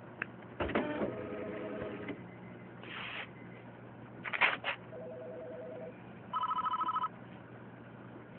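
A telephone ringing in short trilling bursts, the last and loudest burst near the end. A few clicks and brief noises fall between the rings.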